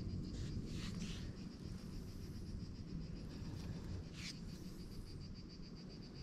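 Faint outdoor ambience with an insect's steady, high-pitched pulsing trill over a low rumble, and a few soft clicks about a second in and again about four seconds in.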